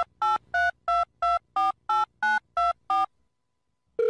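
Telephone keypad touch tones: ten short two-note beeps, about three a second, dialing a number. A steady phone tone starts just at the end.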